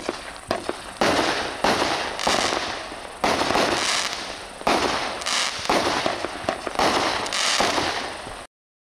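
A 200-gram consumer fireworks cake fires a string of nine shots, a sharp report every half-second to second and a half, each followed by a spell of crackling and sizzling from the strobe and crackle effects. The sound cuts off suddenly near the end.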